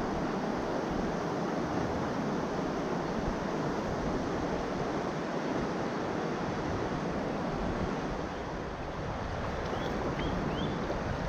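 Shallow river running fast over a stony riffle, a steady rush of water close to the microphone. About ten seconds in, three faint short high chirps sound above it.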